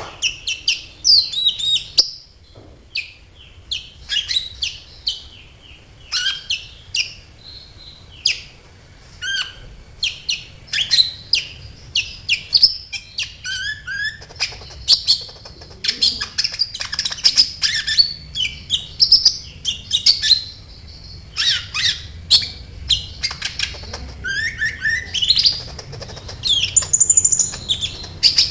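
A kolibri ninja (a small sunbird) singing in fast bursts of sharp, high chirps and short trills, broken by brief pauses.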